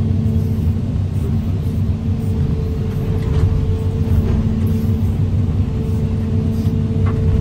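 Excavator's diesel engine running steadily under hydraulic load with a constant low hum while the arm lifts a stack of crushed cars.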